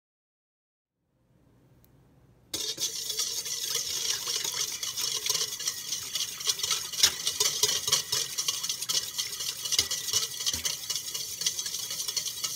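A whisk stirring rapidly in a stainless steel mixing bowl of liquid, a steady scraping with fast fine clicks of the wires against the metal, starting about two and a half seconds in. This is warm water, yeast and sugar being mixed until dissolved.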